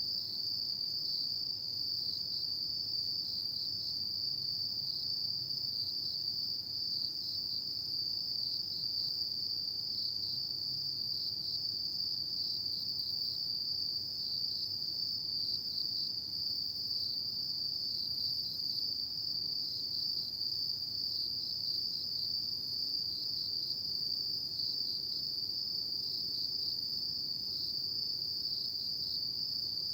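Autumn insects calling at night: one steady, high, unbroken trill with a slight flutter, over a faint low background hum.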